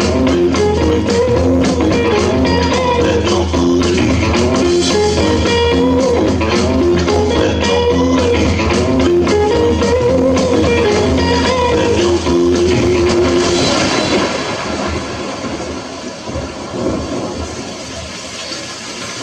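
Instrumental stretch of a rhythm-and-blues rock song: guitar over a drum kit, with no singing. About fourteen seconds in the band drops away and a steady rushing noise takes over, quieter than the music.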